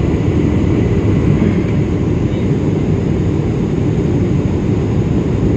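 Airliner cabin noise on the landing approach: the steady low rush of engines and airflow, heard from inside the passenger cabin.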